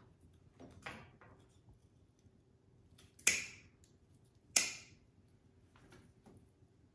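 Leaves being stripped by hand off a rosemary stem: a faint rustle about a second in, then two sharp, crisp rips about a second and a half apart near the middle.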